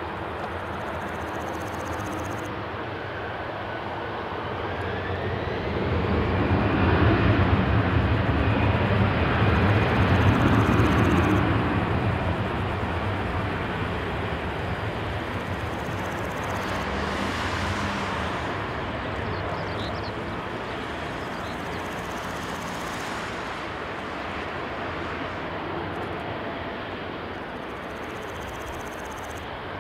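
Airbus A350-900's Rolls-Royce Trent XWB jet engines running at taxi power as the airliner rolls past: a steady jet rumble and whine. A whine rises in pitch a few seconds in, and the rumble swells for about six seconds in the middle before easing off.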